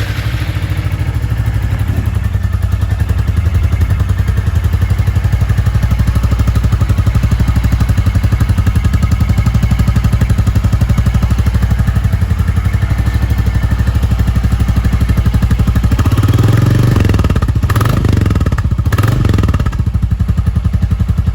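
Royal Enfield Classic 350's single-cylinder engine idling through its stock silencer with catalytic converter, a steady low thump. Near the end the throttle is blipped twice, the revs rising and falling each time.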